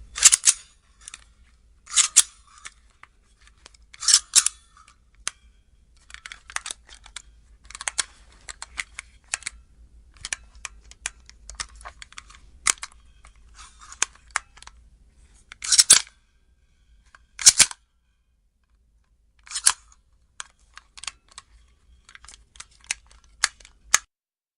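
A firearm being handled: a run of metallic clicks and clacks, with louder sharp clacks every few seconds, some in close pairs, and lighter ticking between them.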